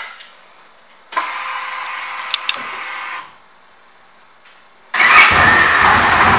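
2007 Victory Kingpin Tour's Freedom V-twin being started: a click, a steady electric whir of about two seconds, a pause, then about five seconds in the engine catches and runs loudly with a fast low pulse.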